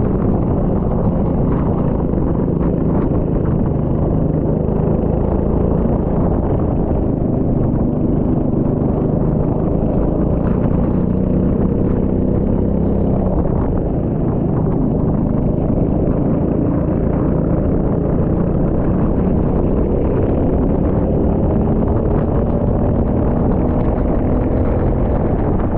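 Rental kart engine running on track, its pitch rising and falling as the throttle opens and closes, with a constant noisy rush over it.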